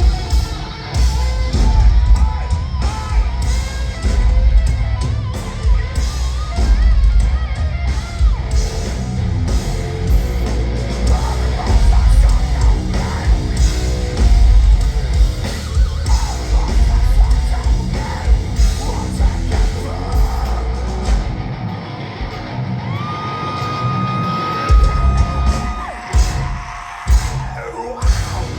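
Heavy metal band playing live at full volume: distorted guitars and pounding drums under yelled vocals. Near the end the bass and drums drop out for a few seconds under a single high held note that slides up into place, then the full band crashes back in.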